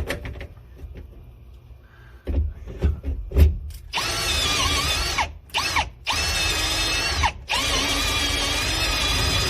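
Power drill boring into a stuck ignition switch, run in three spurts from about four seconds in, its whine dipping in pitch at the start of each run. Before it, a few light clicks and knocks as the drill is set in place.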